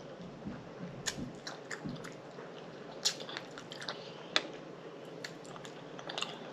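A person chewing and smacking their lips while eating pig feet, with wet mouth clicks and smacks scattered irregularly.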